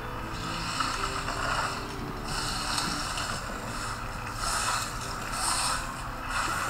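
A hand squeezing and kneading sticky tamarind pulp with chopped onion, garlic and chili in a bowl: wet squelching and rustling in repeated strokes.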